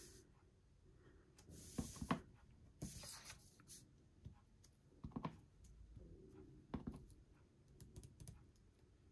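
Faint handling sounds of rubber stamping: a clear acrylic-mounted stamp tapped on an ink pad and pressed onto paper. There are a few soft knocks and two brief paper rustles near the start.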